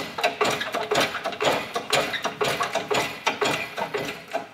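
Rapid, irregular metallic clicking and rattling of steel press tooling (a pushing rod, washers and spacers) being handled and adjusted under a hydraulic shop press ram.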